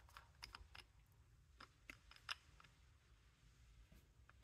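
Near silence with a few faint small clicks and ticks in the first couple of seconds: a glass nail polish bottle being unscrewed and its cap and brush handled.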